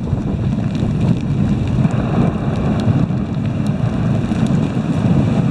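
A dog sled gliding along a snowy trail: a steady rumbling hiss of the runners on the snow, mixed with wind buffeting the microphone.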